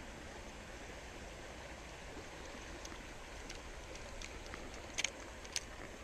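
Shallow creek water running over rocks, a steady rush, with a few sharp clicks about five seconds in.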